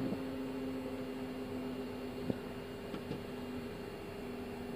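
Steady cockpit noise of an Airbus A320neo taxiing: the engines at idle and ventilation hiss under a few steady humming tones, with a couple of short clicks a little past the middle.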